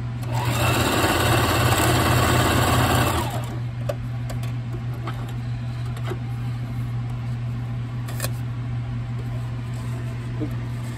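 Singer sewing machine stitching through elastic for about three seconds, starting about half a second in and then stopping, as the two ends of an elastic band are sewn together into a loop. Afterwards there is only a steady low hum and a few light clicks.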